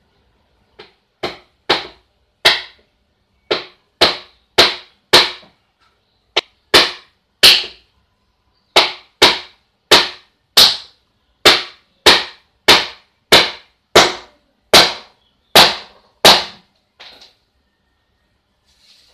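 A small hammer striking, driving nails into the thin plywood of a wooden miniature house model: about two dozen sharp blows in short runs of two to four, roughly two a second, with brief pauses between runs.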